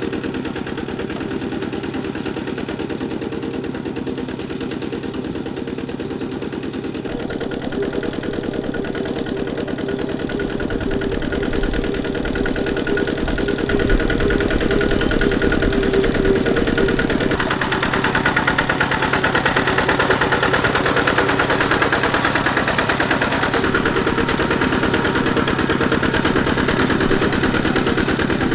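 Kubota single-cylinder diesel engine of a two-wheel walking tractor running steadily under load as it drags a plow through wet paddy mud, with a fast even firing beat. It grows louder about halfway through.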